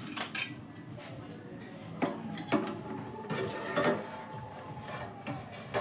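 A metal spatula knocking and clinking on a large aluminium kadai and its lid: a few sharp knocks with a short metallic ring, bunched about two to four seconds in.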